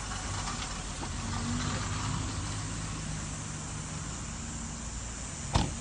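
Parked car's engine idling steadily, with the car door slammed shut once about five and a half seconds in.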